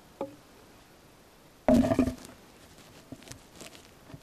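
Long lichen-covered wooden branches knocking against each other as they are handled. There is a light knock at the start, then a loud, briefly ringing wooden clatter about two seconds in, followed by a few soft knocks and rustles.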